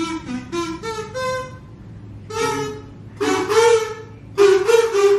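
Kazoos buzzing out a melody: a quick run of short notes, then a few longer held notes with short pauses between.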